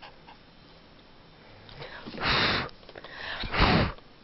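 A puppy snorting twice through its nose, two short, noisy huffs about a second apart.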